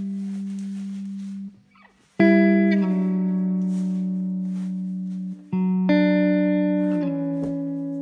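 Background music: slow, ringing chords that fade away, with a short break about a second and a half in before new chords come in, and further chord changes later.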